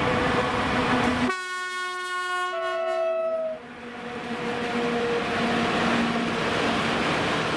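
Electric freight locomotive passing with a long coal train, sounding its horn about a second in for roughly two seconds, the horn changing tone partway through. After the horn, the loaded coal wagons roll by with a steady rail rumble that builds again.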